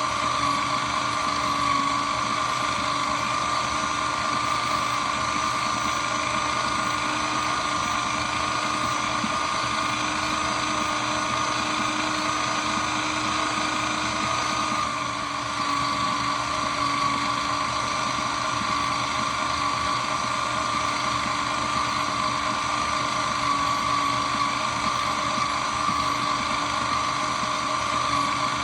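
Shredder machine running continuously: a steady motor hum and whine over a noisy grind, with a brief slight dip in level about halfway through.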